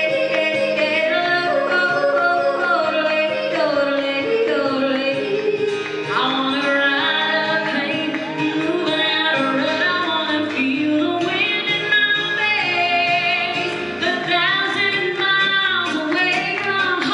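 A woman yodeling live into a microphone, her voice flipping quickly up and down between low and high notes, over acoustic guitar accompaniment.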